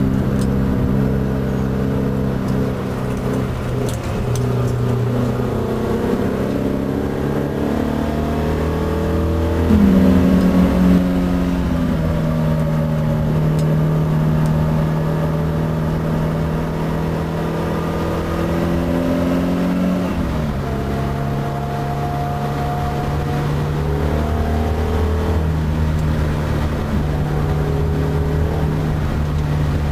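Alfa Romeo Bertone coupé's twin-cam four-cylinder engine, heard from inside the cabin, pulling hard on track, its pitch climbing and dropping with the gear changes. It is loudest briefly about ten seconds in, where the revs jump up and fall back, and the pitch drops sharply around twenty seconds in.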